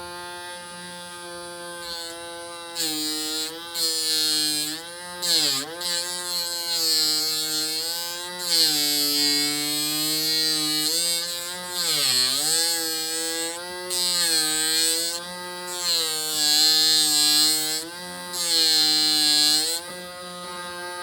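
Small hobby DC motor of a homemade mini sander running with a steady whine whose pitch sags several times as the sandpaper-wrapped spindle is pressed against a piece of wood and bogs under the load. Over it come repeated hissing scrapes of the sandpaper on the wood, each a second or two long.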